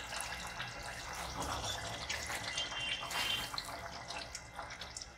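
Thin curry gravy of chicken and chickpeas sloshing and bubbling in a pot as a spatula stirs through it, a steady wet crackle of small irregular pops.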